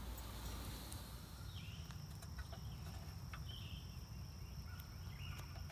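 Outdoor ambience: a steady high insect buzz that sets in about a second and a half in, a few short falling bird chirps, and a low rumble underneath.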